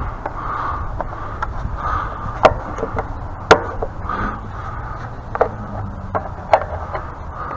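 Irregular sharp knocks and clinks of hand tools against the metal parts of a pressure washer being taken apart, the loudest about two and a half and three and a half seconds in.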